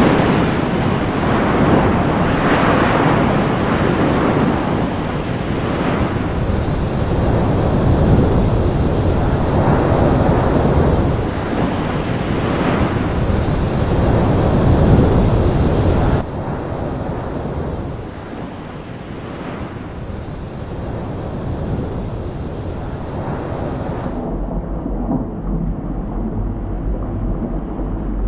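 Loud rushing and crashing of heavy sea waves with deep rumbling, surging up and down. About 24 seconds in, it gives way to a quieter low drone.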